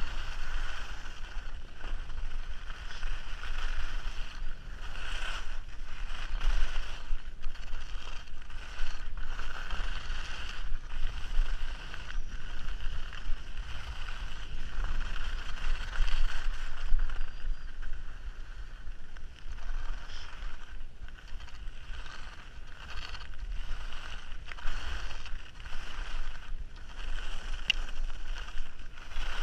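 Skis running and turning over groomed piste snow at speed: a continuous scraping hiss that swells and fades with the turns, over low wind rumble buffeting the camera's microphone.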